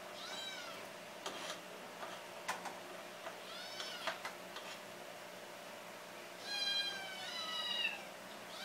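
A cat meowing three times, the last call long and falling in pitch. There are a few light clicks of a metal spoon against the cutting board and frying pan as sliced onions are pushed in.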